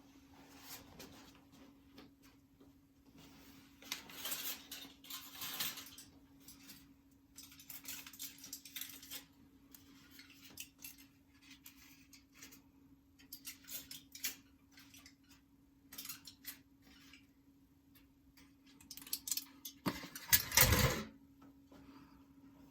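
Wood fire crackling and popping in a fireplace, in irregular clusters of sharp snaps, with a louder burst of crackling and knocking near the end. A faint steady hum runs underneath.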